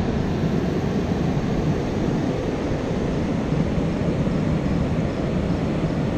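Rushing water of river rapids and falls: a steady, unbroken rumble.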